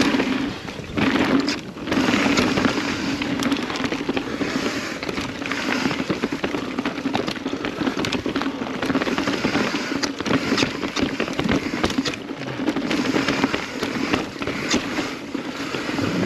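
Kona Process X mountain bike running down a rough trail: tyres crunching and clattering over dirt, rocks and roots, with frequent sharp rattles and clicks from the chain and frame, over a steady low buzz.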